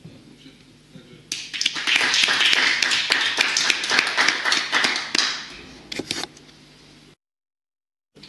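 Audience applauding: dense clapping starts about a second in, holds for about four seconds, then fades out with a few last claps. The audio cuts out abruptly about a second before the end.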